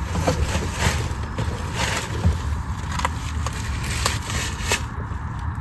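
Scattered knocks, clicks and scrapes of objects being handled and moved while trash is cleared out of a car, over a steady low rumble.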